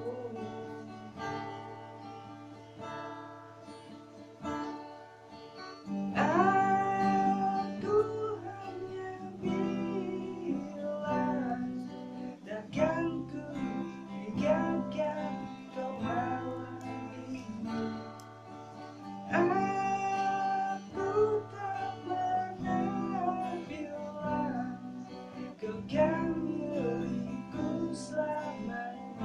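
Acoustic guitar strummed and picked in a steady song accompaniment, quieter at first; from about six seconds in a voice sings a held, wavering melody over it.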